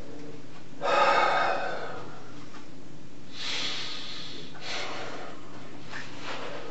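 A man's heavy, noisy breaths and sniffs, about four of them, the loudest about a second in, from a man too upset to answer.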